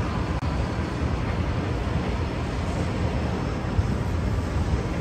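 Steady low rumble of outdoor urban noise over a construction site: traffic and machinery blended into one continuous hum, with a faint steady tone above it.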